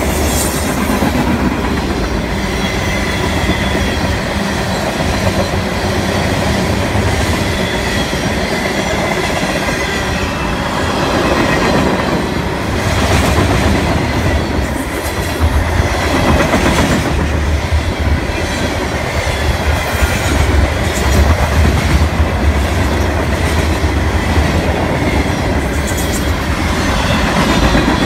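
Mixed freight cars of a Canadian National freight train (boxcars, covered hoppers and tank cars) rolling past close by: a steady, heavy rumble of steel wheels on the rails, with repeated clacks as the wheels cross rail joints.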